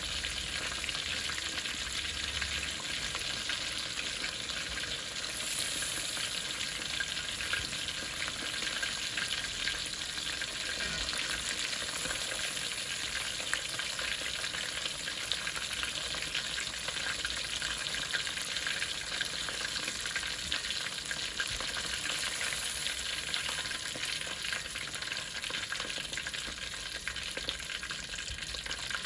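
Breaded chicken tenders deep-frying in hot oil: a steady sizzle, dense with fine crackles and pops.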